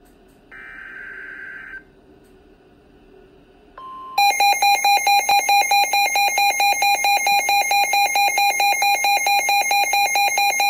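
Midland S.A.M.E. weather alert radio receiving a NOAA Weather Radio warning: a short buzzy burst of digital header data, then the steady broadcast alert tone, then the radio's own loud alarm beeping rapidly, about four beeps a second, over it.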